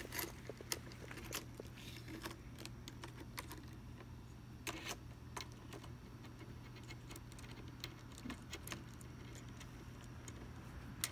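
Light metallic clicks and rattles, scattered and irregular with a few sharper ones, from the scabbard's quick clamp and mounting bracket being handled and fitted around an e-bike handlebar, over a faint steady low hum.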